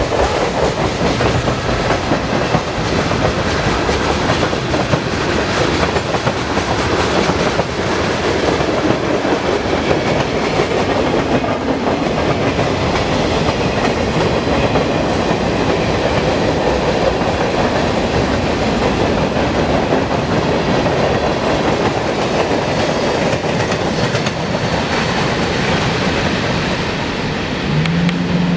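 Train cars rolling steadily past, with a continuous clatter of wheels over the rails. A steady low hum comes in near the end.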